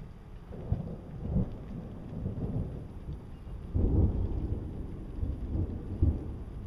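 Strong storm wind gusting against the microphone in low, uneven rumbling buffets, the strongest about four seconds in.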